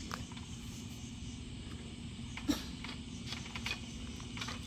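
Quiet background with a steady faint low hum, a few soft clicks and one short knock about two and a half seconds in.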